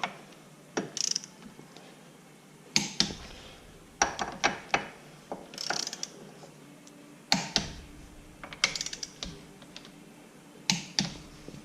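Torque wrench ratcheting and clicking as bolts on a Ford 9-inch third member are tightened to 30. Sharp metal clicks come in irregular clusters, with quiet gaps between strokes.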